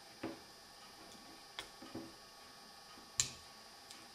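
Four sharp clicks of a Victorinox Swiss Army knife's folding tools being opened and snapped shut, the loudest about three seconds in.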